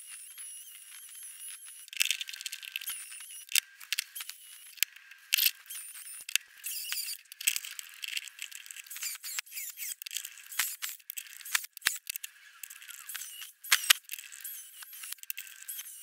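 Angle grinder with a thin cut-off disc working on aluminium bronze castings, cutting the pieces off their sprues: a steady whine for the first two seconds, then irregular clicks, scraping and clatter of metal on the steel bench top.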